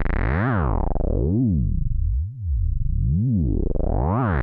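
Moog Werkstatt-01 analog monosynth playing a big, wet, sustained bass tone, its pitch wobbling up and down about once a second. The tone turns dull around the middle and brightens again near the end.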